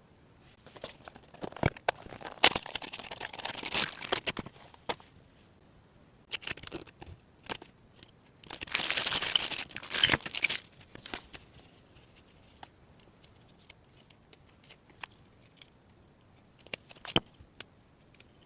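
Plastic packaging crinkling and tearing in two stretches, with small sharp clicks and taps from handling small toy pieces in between and a few more near the end.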